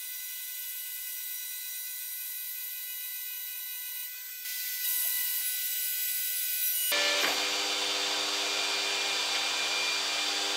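Makita trim router on a CNC gantry running and routing the overhang off an MDF spoilboard, a steady high whine. About seven seconds in, a louder, fuller rushing noise with lower steady tones joins it.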